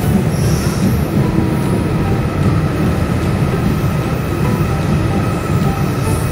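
A train running steadily: continuous loud rail noise with a faint high whine held above it.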